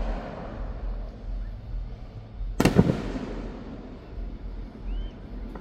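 Aerial fireworks shells bursting. One loud boom comes about halfway through with a long echoing rumble after it, and another boom comes right at the end.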